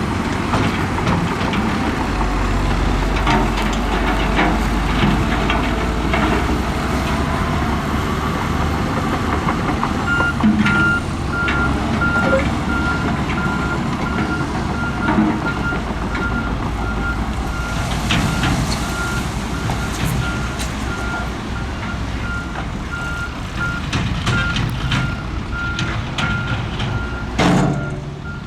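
Heavy diesel earthmoving machinery running under load, with scattered metallic knocks and clanks. From about a third of the way in, a reversing alarm beeps steadily. Near the end there is one louder sharp knock.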